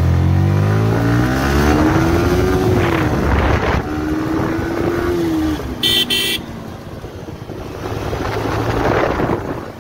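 Yamaha sport motorcycle engine heard from the saddle with wind rushing past: it revs up, rising in pitch, drops with an upshift, holds a steady note, then eases off. A short high beep comes about six seconds in.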